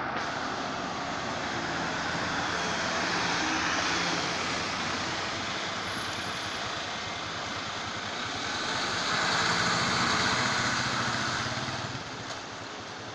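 Street traffic: an articulated Mercedes-Benz Citaro city bus driving past and away, with a car and a motorcycle going by. The noise swells a little after halfway, then drops near the end.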